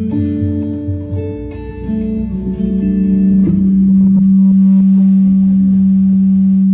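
Guitar playing a quick series of notes, then one low note held steady for about three seconds.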